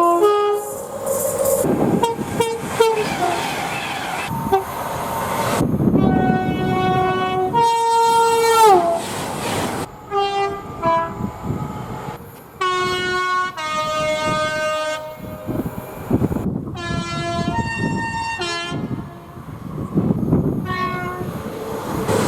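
A string of train horns from different trains, cut one after another: multi-note chords sounded as short toots and longer held blasts, several sliding down in pitch as they are released, over the running noise of the trains.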